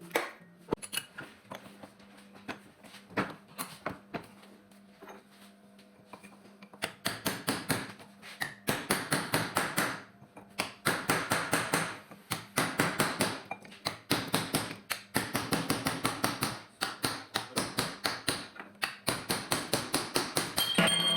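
Rapid, evenly spaced metallic clicking in runs of a few seconds, about six clicks a second, from hand tools at work on the car, over a faint steady hum.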